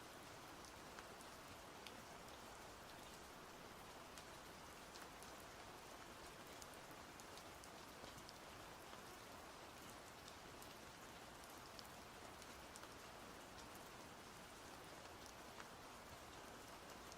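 Steady, soft rain falling, with scattered drop patters.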